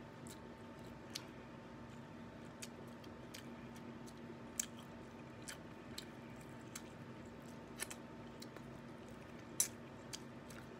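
Faint chewing with scattered small clicks and crackles of crab shell being pulled apart by hand, over a steady low hum.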